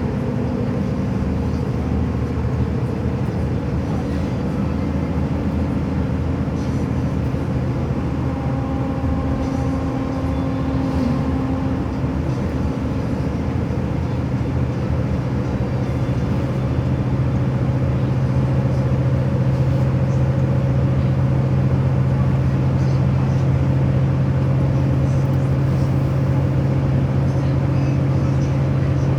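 Steady engine drone of a moving vehicle, with a low hum that grows a little louder about halfway through.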